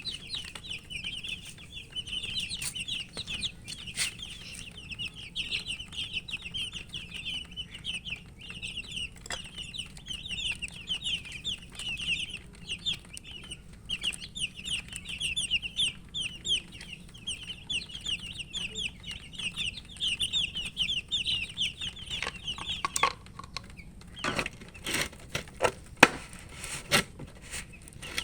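A group of baby chicks peeping continuously in quick, high chirps. About three-quarters of the way through the peeping stops and a handful of sharp knocks follow.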